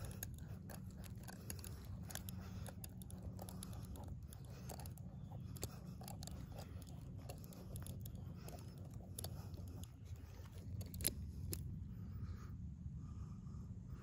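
Small metallic clicks and scrapes of a Leatherman Crunch locking-pliers multitool being worked open in one hand, with one sharp click about three quarters of the way through, over a steady low rumble.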